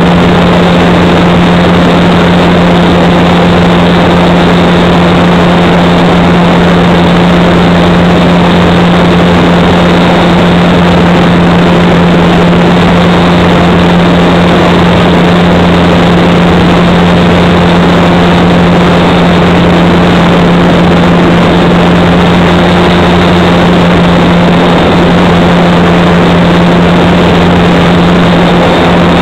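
Electric motor and propeller of a Parkzone SE5a RC model plane, heard from a camera on board in flight. It makes a loud, steady hum at one unchanging pitch, held at a gentle cruise throttle.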